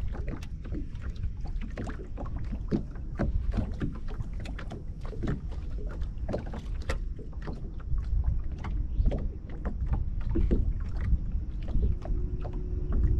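Small waves slapping and lapping against a bass boat's hull in irregular short splashes over a low rumble. A steady hum comes in near the end.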